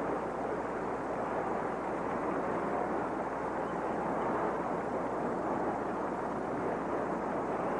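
Large arena crowd applauding and cheering steadily.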